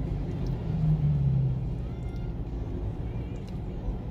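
Low rumble of a car's engine and tyres heard from inside the cabin while driving in slow traffic, with a low hum swelling briefly about a second in.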